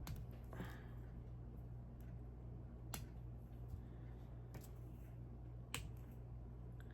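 Plastic Lego pieces being handled and pressed together: a few scattered sharp clicks, over a steady low hum.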